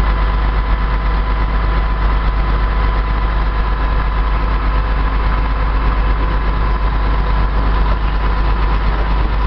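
Vehicle engine running steadily with a deep rumble, holding an even pitch without revving.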